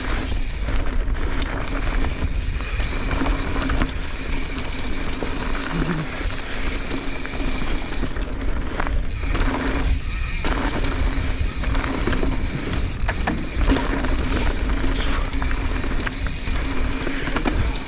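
Mountain bike descending a dusty dirt downhill trail: continuous tyre and wind noise with rattles and knocks from the bike. A steady buzzing tone runs under it and breaks off briefly a few times.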